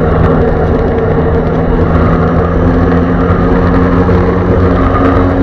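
Jet ski engine running steadily at speed, a loud held engine note over a rush of water and wind noise.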